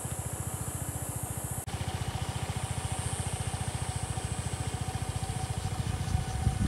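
Small single-cylinder scooter engine, a SYM Woo 115, idling steadily with a fast, even beat, while insects buzz high and steady over it.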